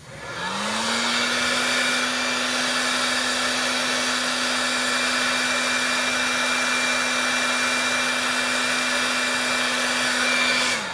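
Milwaukee heat gun switched on, its fan motor spinning up within about half a second to a steady hum over a rush of air, then switched off at the end and winding down. It is blowing hot air onto a suspect integrated circuit on a power supply's control board to find a heat-sensitive fault.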